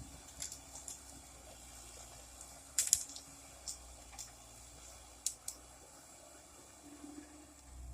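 Irregular sharp clicks and ticks, about seven of them, the loudest a quick double click about three seconds in, over a faint, steady low rumble.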